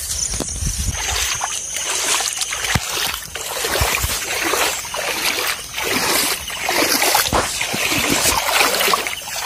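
Footsteps splashing and squelching through shallow floodwater and mud at a walking pace, one step about every two-thirds of a second.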